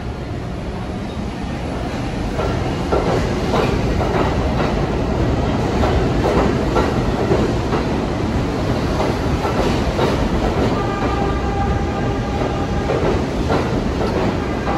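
New York City subway train running along the station track, its wheels clacking again and again over rail joints over a steady rumble. A steady whine of several tones joins in the last few seconds.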